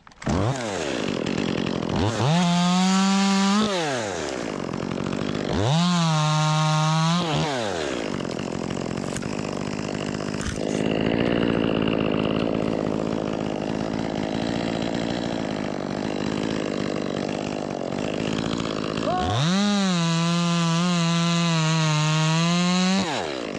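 Ported Echo 25 t two-stroke top-handle chainsaw revved to full throttle in three bursts, with the pitch sweeping up and falling back each time. Between the second and third bursts it runs lower and rougher for about ten seconds while cutting through wood.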